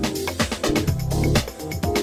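Upbeat background music with a steady beat and a moving bass line.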